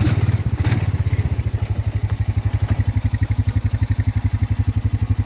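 ATV engine running at low revs with a steady, even pulsing beat as the machine creeps forward. There are a couple of short knocks in the first second.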